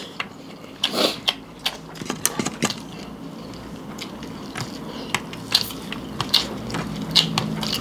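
Close-up eating sounds: chewing and crunching mouthfuls, with irregular sharp clicks and crackles.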